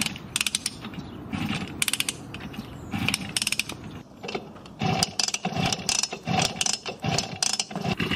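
Simson moped's two-stroke engine being kick-started over and over, the kick-start mechanism ratcheting and the engine turning over with each kick without catching. The kicks come quicker and more evenly in the second half.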